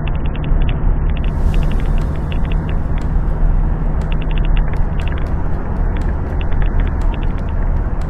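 Motor vehicle running steadily, with a constant low engine hum and road rumble. Over it come repeated bursts of rapid, high-pitched ticking or rattling.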